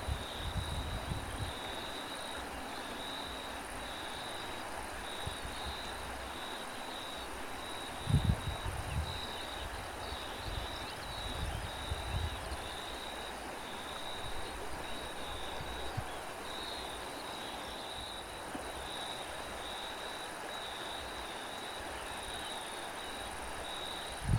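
Crickets chirping in a steady, evenly pulsing high trill, over wind. Wind buffets the microphone with low rumbling gusts, the strongest about eight seconds in and another at the very end.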